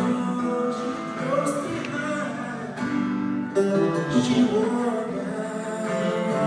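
A man singing to his own acoustic guitar in a solo live performance, heard from the audience.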